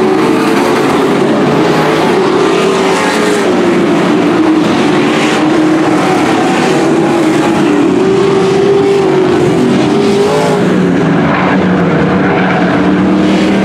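Several dirt-track race trucks running hard around the oval, their engines overlapping, each pitch rising and falling as they pass and lift for the turns.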